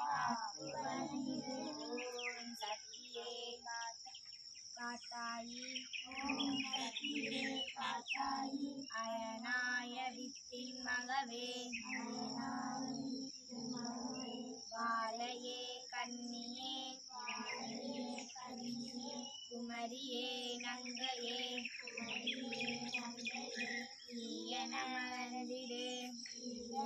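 Voices chanting a Shiva mantra over a steady low drone, with a constant high-pitched whine throughout.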